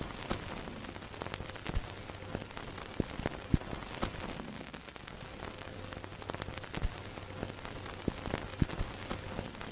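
Old-film style crackle: irregular clicks and pops over a steady hiss and a faint low hum.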